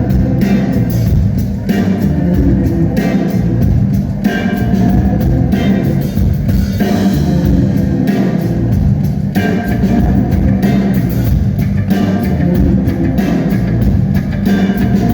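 Live rock band playing a song's opening instrumental section: guitars, bass guitar and drum kit keeping a steady beat, loud as heard in a concert hall.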